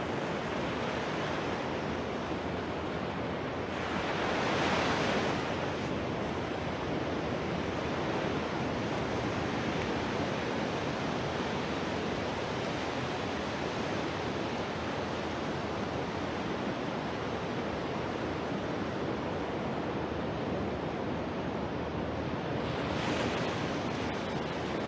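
Small surf waves breaking and washing up a sandy beach: a steady rush of water, with a louder wave breaking about four to five seconds in and another near the end.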